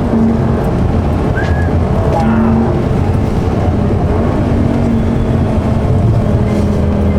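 Lamborghini Gallardo's naturally aspirated V10 running under load on the move, its engine note holding fairly even, over road and tyre noise.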